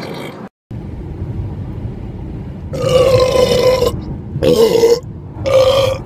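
A man belching loudly three times: first a long, evenly pitched belch of just over a second, then two shorter ones, the second wavering in pitch. Underneath is the low rumble of a car cabin.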